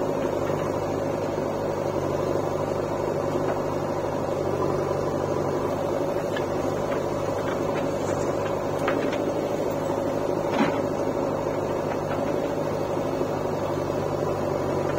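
Diesel engines of a JCB backhoe loader and nearby tractors running at a steady drone while the backhoe loads soil into a trolley. A single short knock comes about ten and a half seconds in.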